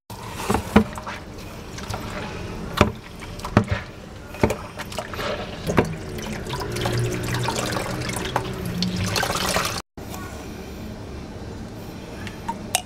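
Grated coconut in a cloth bag squeezed by hand, coconut milk trickling and splashing into a plastic bowl of water, with several sharp clicks of handling in the first half.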